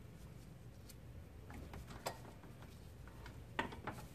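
Faint clicking of a ratchet wrench being worked to tighten an alternator mounting bolt. There is a sharper metallic click about two seconds in and another near the end.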